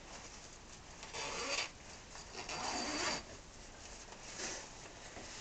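Tent fabric rustling and swishing as it is lifted and handled: two louder swishes, then a smaller one near the end.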